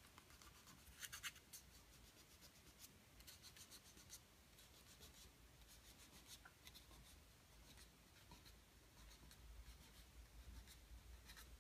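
Near silence with faint scratches and rubbing: scotch tape being laid and pressed down along the wing's trailing edge, over the tops of the ribs.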